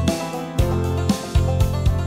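Background music: plucked notes over a bass line that changes about every half second.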